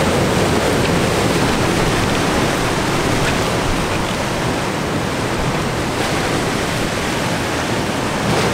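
Heavy ocean surf breaking against a rocky shore, a steady loud rush of water, with wind blowing across the microphone.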